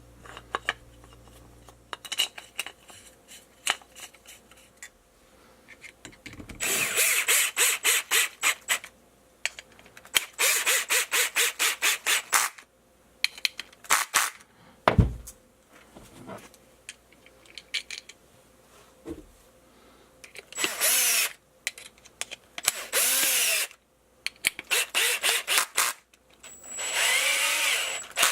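Power screwdriver driving screws in several short runs, some with a fast, even ticking, others with a motor pitch that rises and falls. These are the screws that fasten a carbon fiber shock tower to an RC car's differential. Between the runs come small clicks and knocks of parts being handled, with one low thump.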